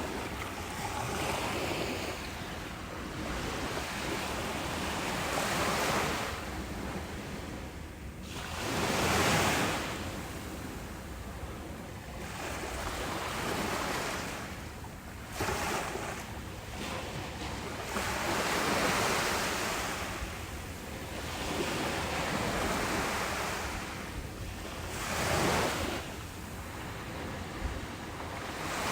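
Ocean surf breaking on a beach: a broad rushing wash that swells and fades with each wave, one surge every few seconds.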